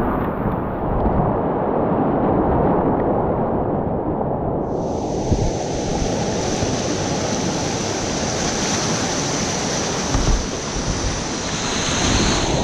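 Loud, steady rush of river whitewater heard from a kayak running the rapids, with water and wind buffeting the microphone. About five seconds in, a thin, high steady hiss joins it.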